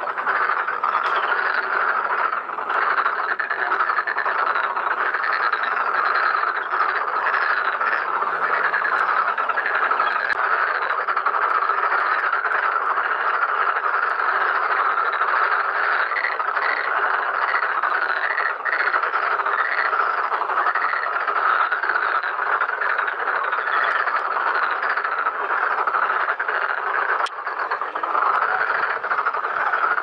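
A dense breeding chorus of many black-spotted pond frogs, overlapping croaking calls running on without a break.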